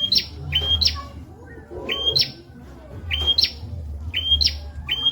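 A prenjak (prinia) singing a repeated phrase about once a second: a short, steady high whistle followed at once by a harsh note that rises and then falls. A low, steady hum runs underneath.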